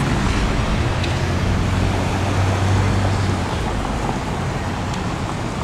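Street traffic: cars driving past close by, a steady rush of engine and tyre noise, with a low engine hum standing out for a couple of seconds in the middle.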